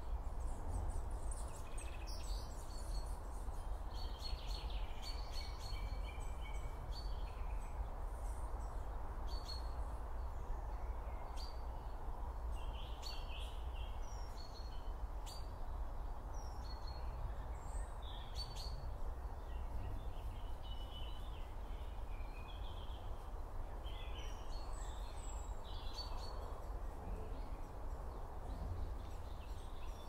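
Outdoor ambience: birds chirping and calling on and off over a steady low background rumble.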